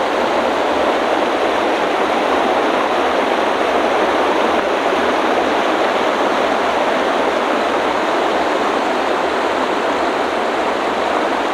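Rushing river water, a steady, even rush with no breaks.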